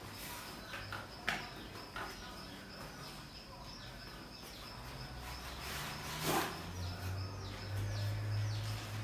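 Small birds chirping repeatedly in short falling notes, over a thin steady high tone. A few brief rustling strokes of a gift package being opened come through, the loudest about six seconds in.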